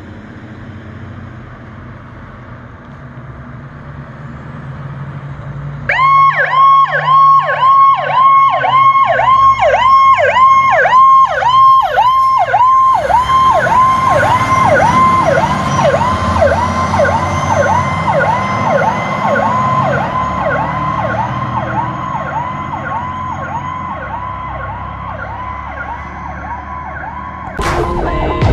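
A fire truck's diesel engine runs, then an electronic siren switches on abruptly about six seconds in and yelps rapidly, about three sweeps a second. Partway through, a second siren winds up underneath it, and loud horn-like blasts come in near the end.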